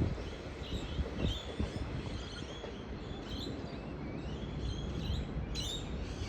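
Small birds chirping in short repeated calls over a steady low rumble, with a sharper, louder burst of chirping about five and a half seconds in.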